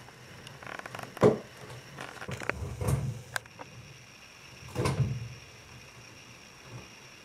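A few knocks and low thuds: a single sharp, loud knock about a second in, a cluster of clicks and thuds around three seconds in, and another group of thuds around five seconds in.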